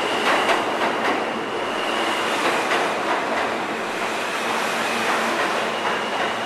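Subway train running past a platform, wheels clicking over the rail joints under a steady rushing noise, with a thin steady high whine that fades about halfway through and comes back near the end.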